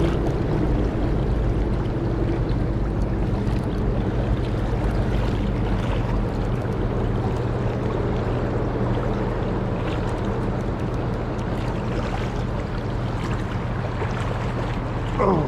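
Steady rush of flowing river current.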